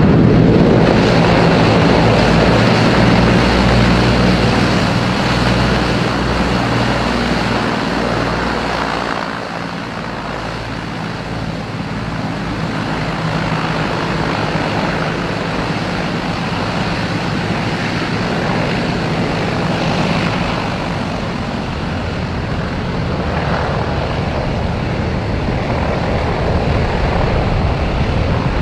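De Havilland Canada DHC-4 Caribou's twin radial piston engines and propellers running after landing, loudest in the first nine seconds, then a little quieter and steady.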